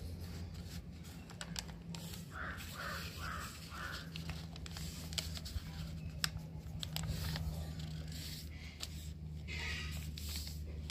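A sheet of paper being folded and creased by hand into a paper airplane: scattered crisp crinkles and clicks over a steady low hum. About two seconds in come four short harsh calls in quick succession, and one more near the end.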